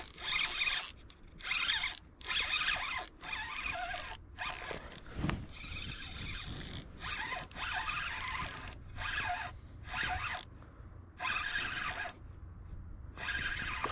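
Fishing reel cranked in repeated short bursts, its gears whirring and clicking, as a hooked bass is reeled in.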